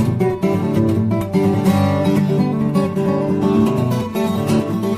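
Solo fingerstyle acoustic guitar music, with quickly plucked melody notes over a steady bass line.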